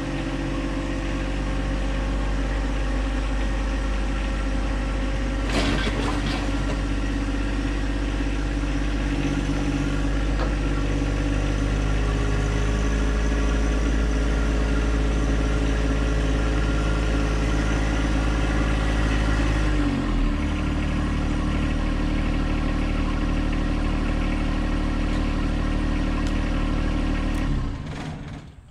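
John Deere 2025R compact tractor's three-cylinder diesel engine running as the tractor comes down the trailer ramps, with a single knock about five seconds in. About twenty seconds in the engine drops to a lower speed, and it shuts off near the end.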